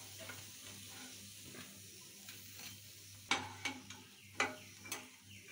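Besan pakoras sizzling softly in hot oil. In the second half come four sharp metal clinks as the fried pakoras are lifted out with a slotted spoon onto a steel plate.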